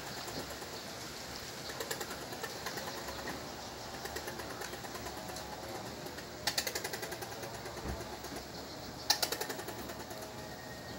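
Squirrel chattering: runs of quick, rapidly repeated calls that start loud and fade, the loudest about six and a half seconds in and again about nine seconds in, with softer chatter earlier.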